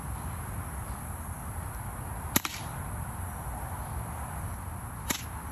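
Smith & Wesson BB pistol fired twice, two sharp cracks about two and a half seconds apart, the first louder.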